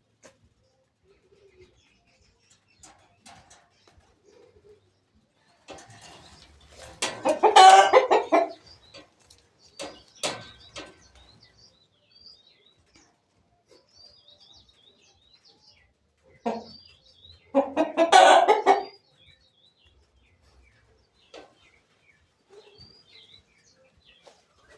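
Poultry: a rooster crowing twice, about ten seconds apart, with chickens clucking and faint high chirps between the crows.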